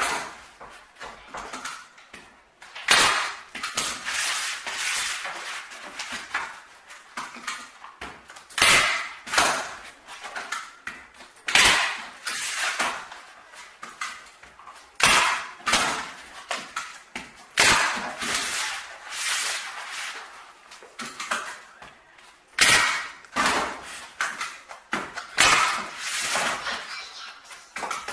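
Staple gun firing staples through canvas into wooden stretcher strips, a sharp snap about every three seconds. Between shots the canvas rustles as it is pulled tight.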